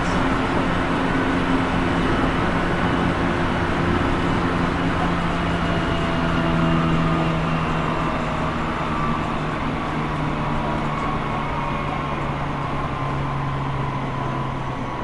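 Tsukuba Express TX1000 series electric train running, heard from inside the car: wheel-and-rail rumble with the whine of its traction motors and Toshiba IGBT VVVF inverter. The tones slowly fall in pitch and the sound eases a little as the train slows.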